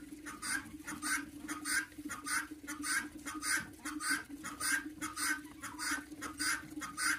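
Domestic guinea fowl calling over and over in an even rhythm, about three short calls a second, over a faint steady low hum.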